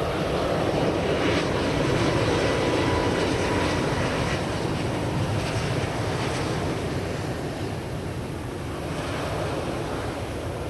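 Rolls-Royce Trent 892 turbofans of a Boeing 777-300 on final approach and landing: a steady jet roar with a faint whine, loudest about two seconds in and slowly fading as the airliner passes.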